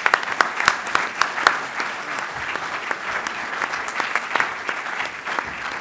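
Large seated audience applauding: many hands clapping at once, loudest in the first second and a half, then steady.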